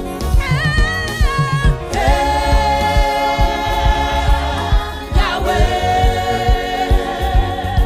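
Gospel song: a choir sings long held notes in harmony over a steady drum beat.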